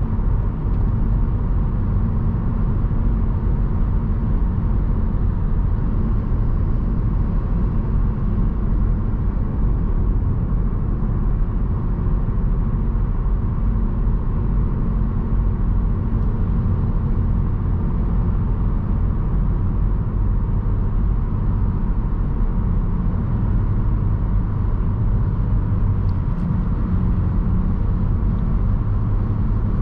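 2024 Cadillac CT5-V Series cruising at highway speed, heard from inside the cabin: its twin-turbo 3.0 L V6 runs as a steady low drone under tyre and road noise. The engine note grows slightly stronger near the end.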